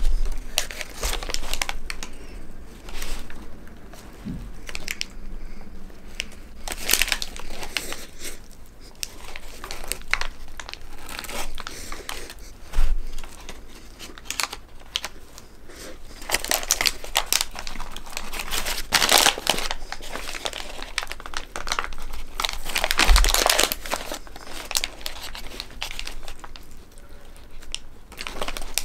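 Brown paper hamburger wrapper crinkling and rustling in the hands while a large burger is bitten and chewed, in irregular crackles with several louder bursts of rustling.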